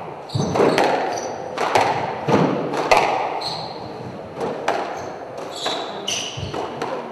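Squash rally: the ball cracking off the racquets and court walls in quick succession, each hit echoing briefly. Short high squeaks from the players' shoes on the wooden court floor come between the hits.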